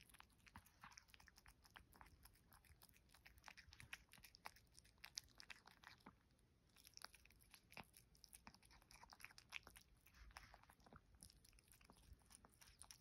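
A cat chewing soft flaked salmon and potato: faint, irregular chewing clicks that keep coming.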